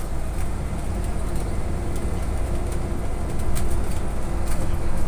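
Cabin noise of a moving trolleybus: a steady low rumble from the road and running gear with a constant faint hum, and light rattling ticks now and then.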